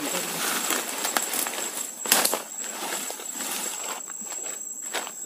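Footsteps and rustling through dense undergrowth and leaf litter, leaves brushing and twigs crackling, with a louder crack about two seconds in. A steady high-pitched insect drone runs underneath.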